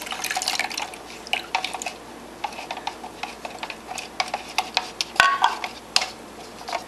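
Water poured from a plastic measuring cup into a cup of white glue, then a wooden craft stick stirring the glue mixture, with many small clicks and taps against the cup. A brief squeak about five seconds in.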